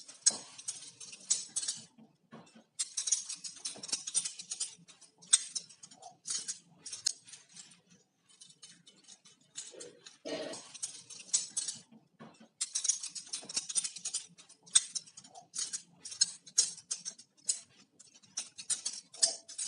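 Butterfly knife being flipped: its two handles swing open and shut with rapid metallic clicking and rattling, in bursts separated by short pauses.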